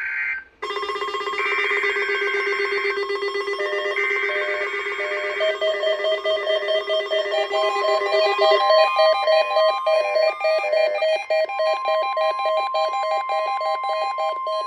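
NOAA Weather Radio weekly test signal: the EAS header sounds as repeated bursts of screechy data tones, then about seven or eight seconds in the steady 1050 Hz warning alarm tone sets in, over a rapidly pulsing mix of other tones.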